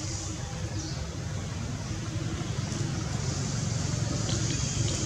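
Low, steady rumble of distant motor traffic, slowly growing louder.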